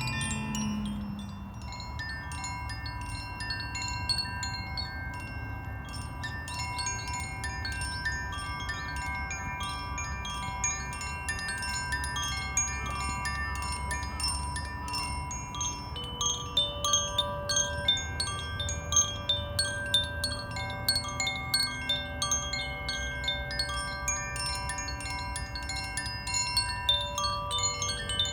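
Koshi bamboo wind chimes being rung: many light metallic strikes with long, overlapping ringing tones, growing quicker and louder in the second half. A low steady rush of waves lies underneath.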